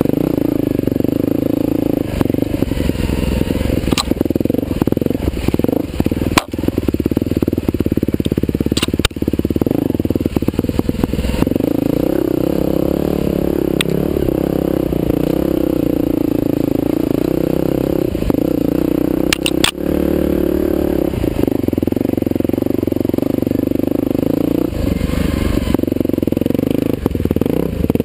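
Husqvarna TE511 dirt bike's single-cylinder four-stroke engine running under load on a trail ride, its pitch rising and falling with the throttle. Occasional sharp knocks are heard through it.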